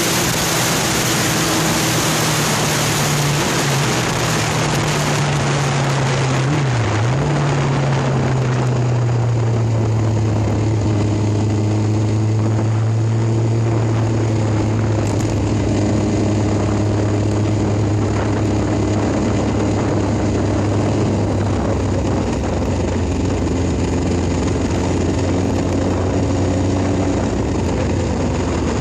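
Motorcycle engine running on the move, with wind noise on the microphone that is heaviest for the first several seconds. The engine note dips briefly twice in the first seven seconds, then holds a steady lower drone.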